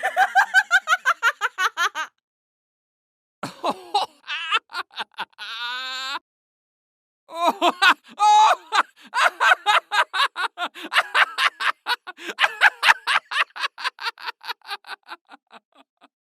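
Three separate human laughs, one after another with silent gaps between them: a short burst of quick laughter, then a higher-pitched giggling laugh, then a long laugh of rapid ha-ha pulses that slowly fades away.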